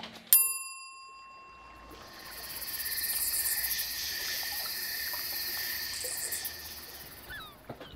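A single bell-like ding right at the start that rings on for a couple of seconds, then a steady chorus of calling frogs and insects that swells in and fades away near the end.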